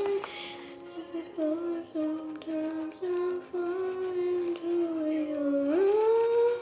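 A girl humming a slow melody without words, holding long notes that step and slide, with a rise in pitch a little before the end.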